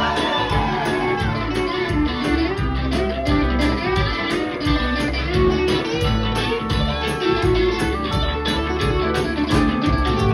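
Live rock band jamming: two electric guitars playing lead and rhythm lines over a drum kit.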